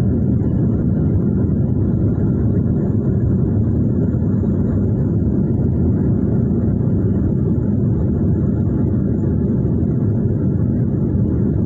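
Airliner cabin noise during the climb-out after takeoff: the jet engines and rushing air make a steady low rumble, heard from inside the cabin.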